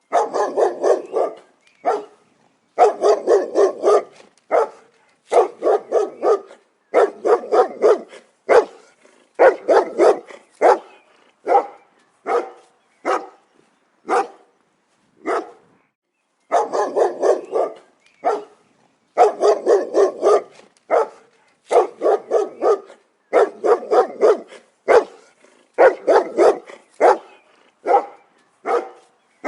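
A dog barking repeatedly in quick runs of short barks, several a second, with brief pauses between the runs.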